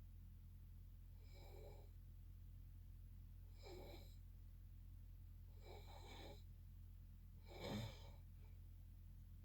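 A sleeping person snoring faintly: four snoring breaths about two seconds apart, the last one the loudest.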